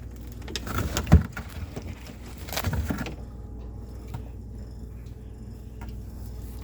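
A few knocks and clatters of things being handled, the loudest about a second in, then a steady low hum.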